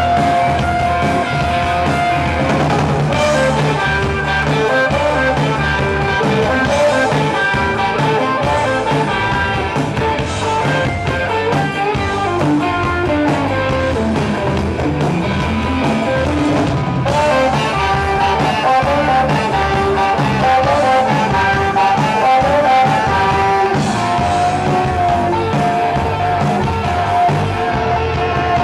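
Live rock band playing: electric guitars, bass and a drum kit, with a saxophone playing held melody notes over them.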